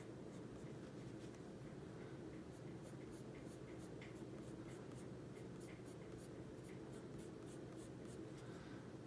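Pencil shading on the paper of a coloring-book page: faint, quick, short scratchy strokes a few times a second, with a faint steady hum underneath.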